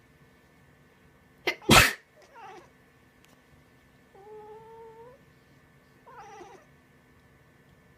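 A person sneezes once, loudly, with a short intake just before it, and a house cat answers the sneeze with three meows: a short falling call, a longer fairly steady one, and another short falling call.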